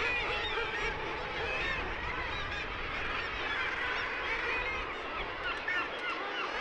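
Seabird colony on a sea cliff: many kittiwakes and other seabirds calling over one another in a dense, continuous clamour of short, rising and falling cries.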